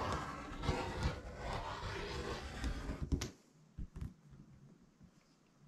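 Quilt fabric being handled and rustled for about three seconds, then a sharp click and a few faint ticks as the handling quietens.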